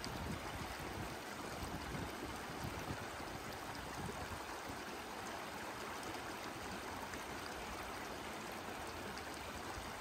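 A steady, even rushing noise outdoors, with no distinct events.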